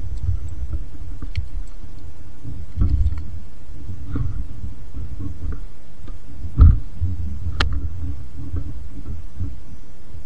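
A fish finder's sound running faintly in the background over a steady low rumble. There are a few small clicks, and one dull thump about two-thirds of the way in is the loudest sound.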